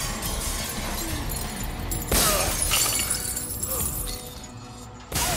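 A glass jar smashing and shattering on the floor about two seconds in, with another sudden crash near the end, over a tense orchestral film score.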